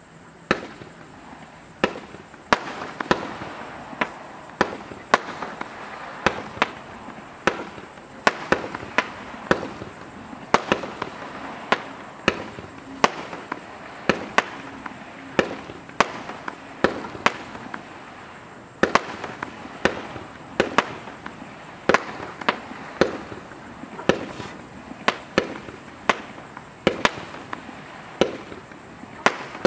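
Celtic Fireworks' Cris Cross firework cake firing a long, steady run of shots: sharp bangs about one to two a second over a continuous hiss.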